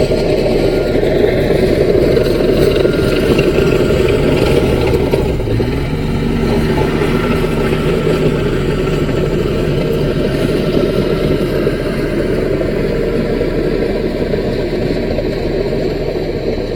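Diesel engine of a small Caterpillar bulldozer running steadily under work, easing slightly to a lower, steadier note about five seconds in.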